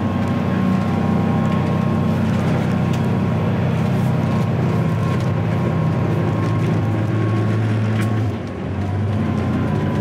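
Volvo Penta D6 380 straight-six diesel sterndrive running at cruising speed, heard on board. The drone is steady, with hull and water noise, and eases briefly about eight seconds in before picking up again.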